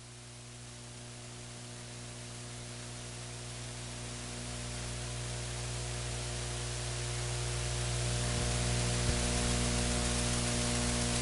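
Steady electrical mains hum with static hiss that slowly grows louder; no race engines or crowd are heard.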